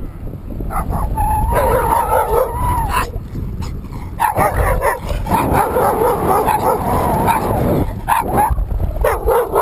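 Dogs barking and yelping as they chase a bicycle, in drawn-out calls with short sharp barks between them, over wind rumble on the microphone.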